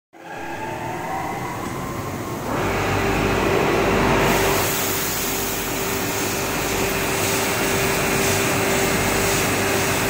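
Industrial crate-washing machine running: its chain-driven roller conveyor and machinery give a steady mechanical rumble and rattle. About two and a half seconds in, a steady hum and a louder rush join it, then the hiss of water spraying inside the wash tunnel.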